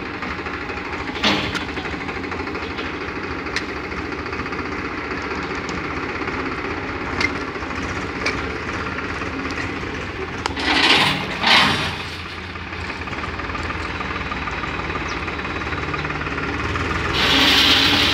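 Tractor diesel engine running steadily with a knocking rumble while its rear-mounted scoop bucket is worked. Two brief louder bursts come about two-thirds of the way in. Near the end a louder rushing scrape starts as the bucket digs into a gravel pile.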